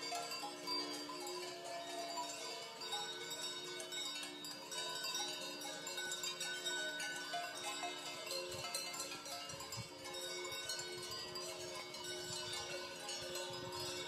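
Many livestock bells (sonnailles) ringing together at once, a dense overlapping clanging of different pitches that carries on without a break.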